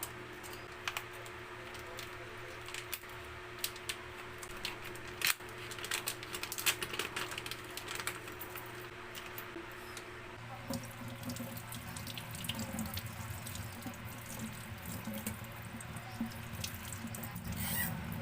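Water running, with many scattered short clicks and knocks over a low steady hum.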